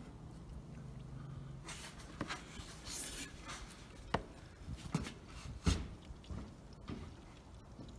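Engine oil from a BMW R1200RT's boxer-engine sump draining in a stream into a plastic drain pan. The oil splashes and patters, with irregular sharp knocks scattered through it.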